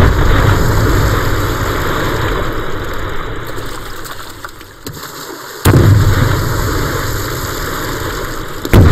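Explosions in a river, war-film battle sound effects. A blast comes right at the start and its rumble dies away slowly, a second blast follows about five and a half seconds in, and a third comes near the end.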